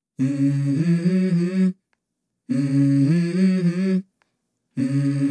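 Hummed male vocal melody opening a pop-rap song: three short phrases of a few stepped notes each, separated by dead silence.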